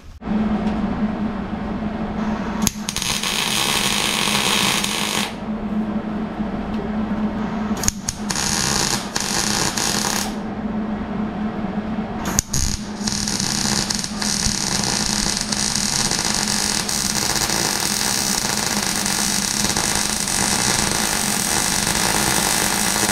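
Wire-feed (MIG) welder arc running as a steel tab is welded onto an angle-iron bracket, over a steady low hum. There are two short welds about three and eight seconds in, then one long continuous weld from about halfway.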